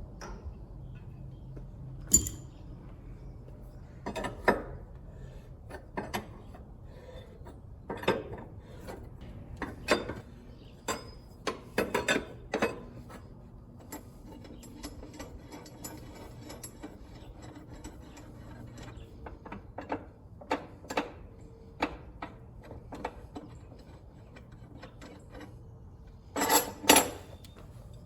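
Hand tools clinking and knocking on metal, irregular sharp strikes, as dual wheels are taken off a tractor. A louder cluster of clanks comes near the end.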